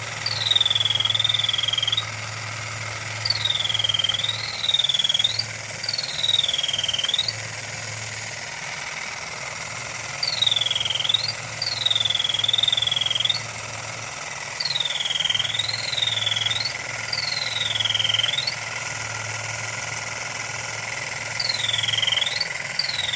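Vintage battery-operated Modern Toys chirping bird in a metal cage, chirping in short whistled tweets that dip and rise in pitch, coming in pairs and threes with short pauses between, over the steady low hum of its mechanism.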